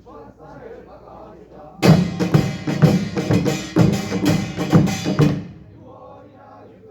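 Korean pungmul percussion ensemble of gongs and drums striking up a short, loud burst of rapid beats about two seconds in, stopping abruptly after about three and a half seconds, with low murmuring voices before and after.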